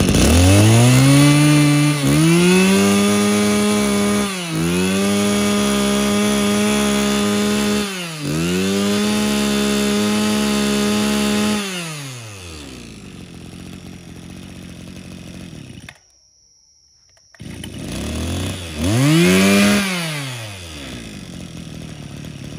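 Mitsubishi TL26 brush cutter's small two-stroke engine revving at high speed, dipping briefly three times, then falling to idle about twelve seconds in. After a second-long break it revs up and down once more and settles back to idle.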